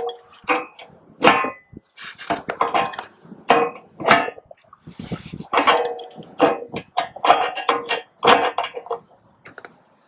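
Adjustable wrench clinking and scraping against the hub bolt of a condenser fan blade as it is tightened onto the motor shaft: a rapid, irregular series of metal-on-metal knocks, some ringing briefly. The knocks thin out near the end.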